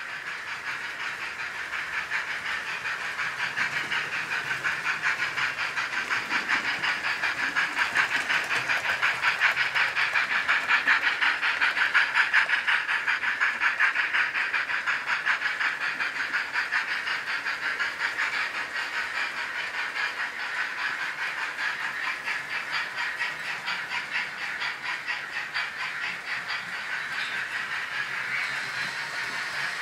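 OO gauge model trains running on the layout's track: a steady whirr and fast rattle of wheels and motor, growing louder to a peak about twelve seconds in as a train passes close, then easing off.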